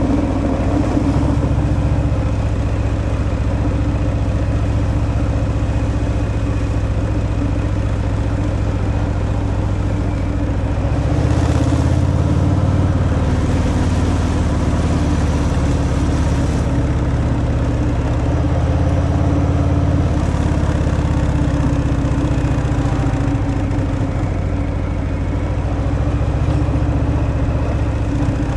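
Harley-Davidson Fat Boy's V-twin engine running on its stock exhaust while riding at a steady pace, swelling louder for a few seconds partway through.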